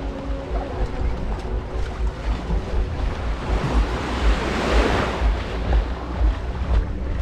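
Small waves washing on the shore, with wind buffeting the microphone; the wash of water swells up and fades away between about four and five and a half seconds in.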